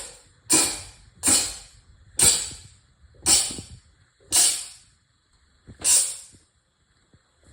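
A fit of sneezes in quick succession, six sharp bursts about a second apart, the gaps lengthening slightly toward the end.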